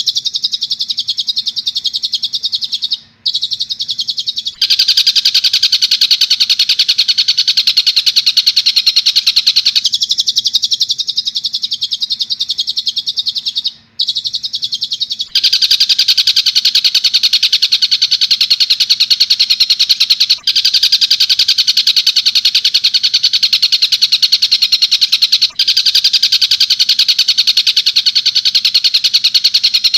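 Looped bird-song training recording of tengkek buto calls alternating with long-tailed shrike (cendet) sounds, each a loud, fast, unbroken rattling trill. It switches between two call types several times, with short breaks where the loop is cut.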